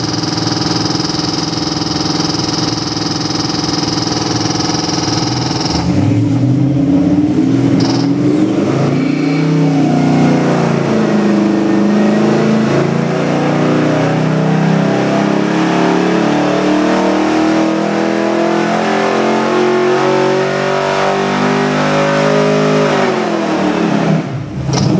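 Ford 427 Windsor stroker V8 with fuel injection, run on an engine dynamometer: it idles steadily, then about six seconds in goes to full throttle for a dyno pull, its pitch climbing steadily under load past 4,000 rpm. Near the end the throttle closes and the revs fall away.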